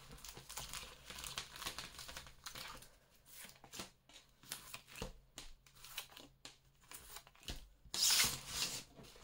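Oracle cards being spread across a wooden tabletop and drawn one by one: soft slides and many light clicks of card on card and card on wood. Near the end comes a louder, longer sliding rush as the spread is gathered up.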